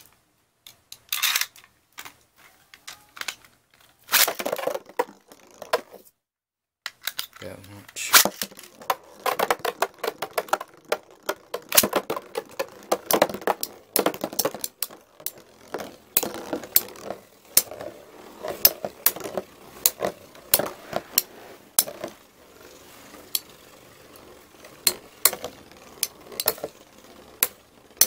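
Two metal-wheeled Beyblade spinning tops, Storm Pegasus 105RF and Lightning L-Drago 100HF, spinning in a plastic stadium. From about eight seconds in they knock against each other and the bowl in a long run of sharp, irregular clicks and clacks with rattling between them.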